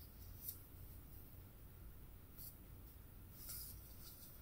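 Faint handling noise from a plastic packaging tray and box being turned in the hands: three brief light scrapes over a low steady hum.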